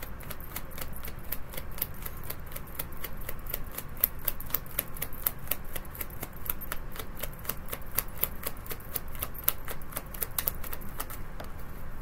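Tarot deck being shuffled by hand, the cards clicking against each other in a fast, even run of several clicks a second that stops about a second before the end.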